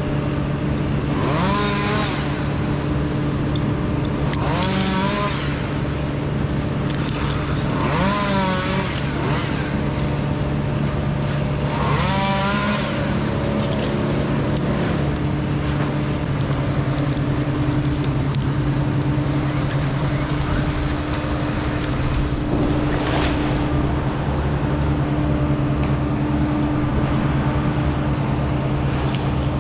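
Steady engine drone, with a wavering higher pitched sound rising over it four times in the first half.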